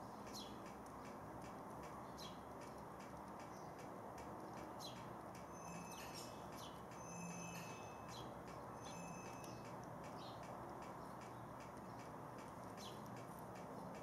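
House sparrows chirping around garden bird feeders: many short, repeated chirps, with a few thin whistled notes around the middle, over a steady low background rush.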